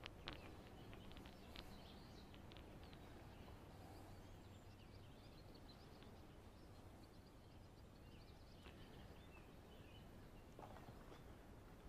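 Near silence: faint outdoor background noise, with a few soft clicks in the first couple of seconds and near the end.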